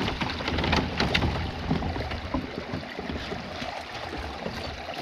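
Water splashing and sloshing beside a kayak as a hooked brook trout is fought at the side of the boat and scooped up in a landing net, with many short irregular splashes.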